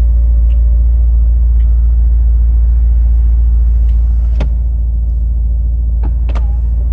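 Mercedes-AMG SL63's twin-turbo V8 idling with a steady low rumble, heard from inside the cabin, while the electric soft top closes, its motor whine fading out about a second in. A few small clicks and squeaks from the roof mechanism follow later.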